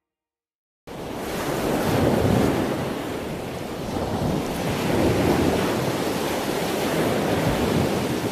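Ocean surf: waves washing ashore, cutting in suddenly about a second in after a moment of silence, then swelling and easing.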